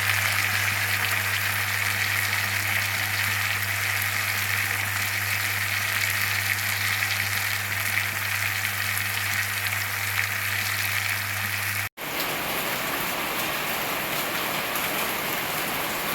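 Curry sizzling in a pan, a steady hiss over a constant low hum. A cut about twelve seconds in switches to a different, broader steady hiss without the hum.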